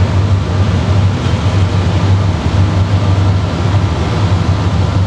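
Diesel freight locomotives running with a steady low drone and a constant rushing noise over it.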